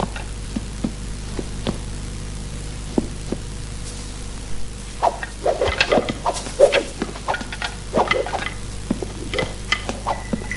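Scuffing footsteps and short sharp clicks of two fighters circling each other, over a steady low hum of an old film soundtrack. The clicks are sparse at first and come thick and fast from about five seconds in.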